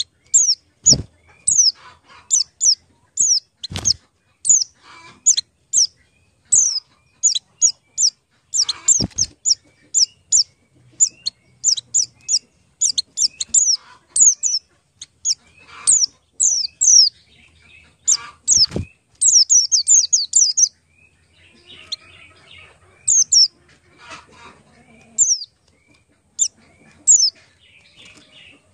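Small birds chirping: short, high, downward-sliding chirps, several a second, thinning out to scattered chirps in the last third. Four dull knocks sound among them, about a second in, near 4 s, near 9 s and near 19 s.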